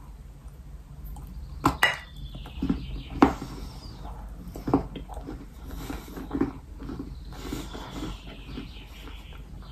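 Biting into and chewing baked clay cookies made from yellow sandy clay: several sharp crunches in the first five seconds, then softer chewing.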